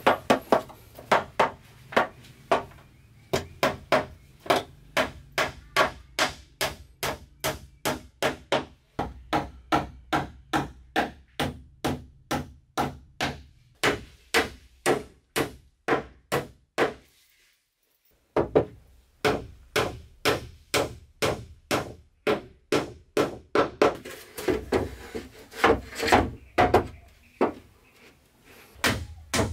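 Evenly spaced strikes of a tool on wood, about two a second, with a short break just past halfway.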